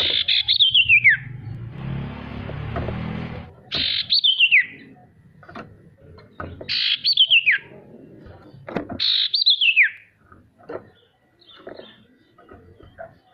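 A sirtu bird calling: four loud whistled phrases, each a trilling slide down in pitch lasting about a second, with a few short chirps in between. A brief patch of hiss with a low hum comes between the first and second phrases.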